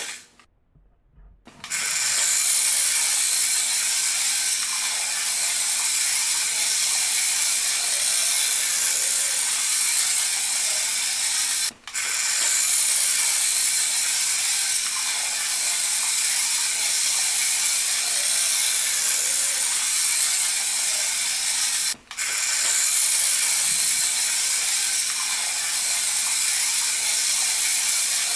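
Tiny electric motor and plastic gears of a 1:64-scale Adventure Force Nano Racer RC truck whirring with a steady, rattly buzz as it drives, cutting out briefly twice.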